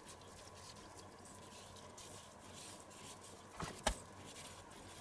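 Quiet knife work on a raw pork neck on a wooden cutting board: faint soft cutting sounds, then one short knock of the knife against the board a little under four seconds in.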